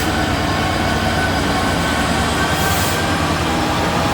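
Freight train of tank wagons rolling past with a steady, loud rumble of wheels on rail and a ringing of steady tones over it. Short bursts of hiss come right at the start and again nearly three seconds in.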